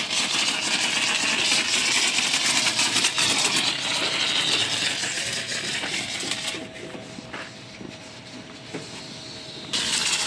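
Pressure-washer water jet hissing as it sprays the side panels and wheel of a car. The spray stops for about three seconds past the middle, leaving a faint steady hum, then starts again near the end.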